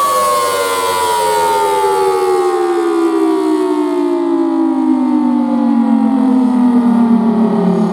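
Federal Signal Thunderbolt 1003 outdoor warning siren sounding the Attack signal: its wail slides down in pitch for nearly eight seconds, then starts climbing again right at the very end.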